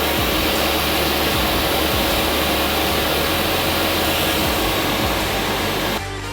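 Steady, loud machine noise of rushing air with a few steady hum tones from the CNC router station. It cuts off abruptly near the end, where music takes over.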